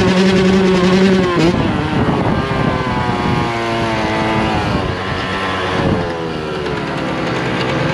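Yamaha YZ125 two-stroke dirt bike engine being ridden: held at a steady high pitch, then a break about a second and a half in, after which the engine note drifts lower.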